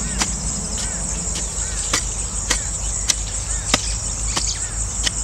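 A hand hoe chopping into loose red soil in quick, regular strokes, about two every second as subsoil is dug out of a planting hole. Underneath is a steady high insect drone.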